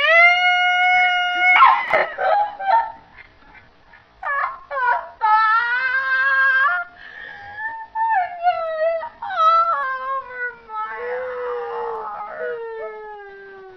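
A human sneeze played back in slow motion, stretched into long, howl-like vocal tones. There is a held high tone, then a noisy burst about two seconds in, then drawn-out wavering tones that slowly fall in pitch.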